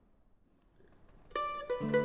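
Near silence, then soundtrack music comes in about a second and a half in: plucked string notes with a fuller chord beneath them.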